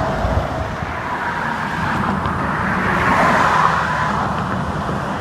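Highway traffic going by: steady tyre and engine noise that swells as a vehicle passes about three seconds in. No horn is sounded.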